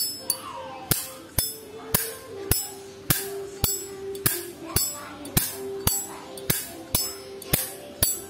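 Background music with a steady beat: sharp percussive hits about twice a second over held tones.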